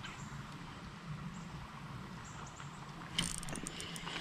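A faint steady background hum, then about three seconds in a sudden burst of clicks and rattles from the fishing reel and rod as he starts reeling in a hooked fish.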